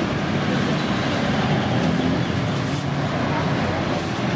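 Busy street-market ambience: a steady hubbub of many distant voices mixed with traffic noise.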